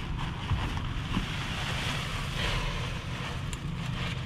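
Steady rush of wind noise on the action camera's microphone, with plastic trash bags and sheeting rustling close by.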